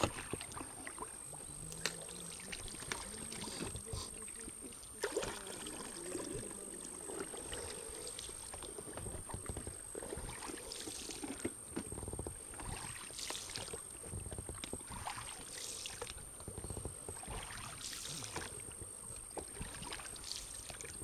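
Oars pulling an inflatable boat through the water, with a splashy swish at each stroke about every two seconds. Scattered knocks run through it, a louder one about five seconds in.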